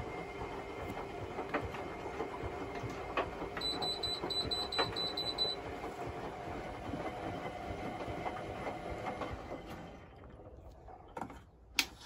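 Hotpoint Extra WMXTF742 front-loading washing machine washing, its drum turning a wet load with sloshing water and small knocks and clicks. It drops away about ten seconds in, then the plastic detergent drawer is pulled out with a sharp click near the end.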